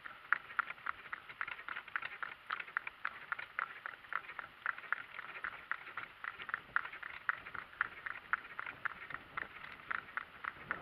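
Donkey's hooves clip-clopping in a quick, even rhythm of several beats a second as it pulls a cart.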